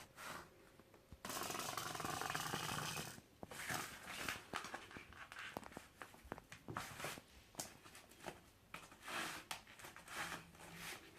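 A cat growling, with a two-second hiss-like rush of noise about a second in, then scattered scratchy clicks and scrabbling.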